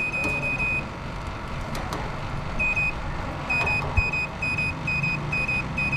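Handheld satellite finder meter beeping: a steady high tone breaks off about a second in, then comes back as short beeps about twice a second. This is the meter's audible signal indicator as the DSTV dish is aimed to lock onto the satellite signal. There is a sharp knock about four seconds in.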